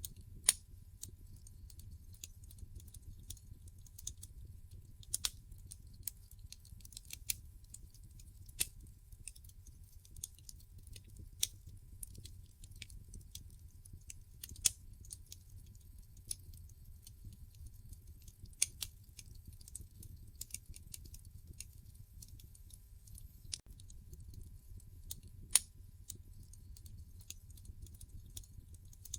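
Wood fire burning in a fireplace: logs crackle with irregular sharp pops and snaps, three of them much louder than the rest, over a low steady rumble.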